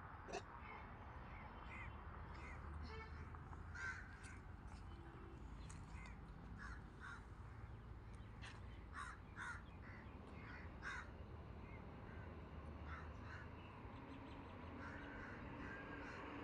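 Birds calling on and off in the surrounding trees, many short calls scattered throughout, faint over a low steady outdoor rumble.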